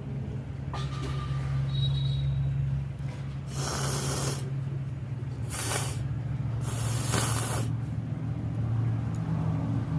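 Three forceful, noisy breaths through a congested nose, a few seconds in, the last about a second long, over a steady low hum.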